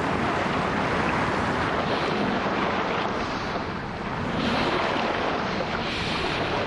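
Underwater rush of water, a steady whooshing noise that swells softly about two, four and a half and six seconds in.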